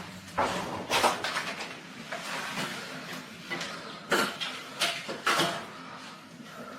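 Irregular knocks, scrapes and rustles of objects being handled, with a sharper stroke every second or so.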